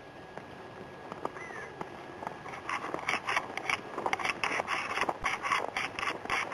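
Steps crunching in snow, starting about two and a half seconds in at roughly three a second and growing louder toward the end.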